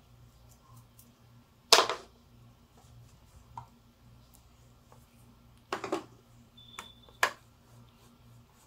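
Scattered clicks and knocks of hands handling a detached metal presser foot and a cleaning brush against the plastic body of a sewing machine: a sharp one about two seconds in and a few more around six and seven seconds in, over a faint steady low hum.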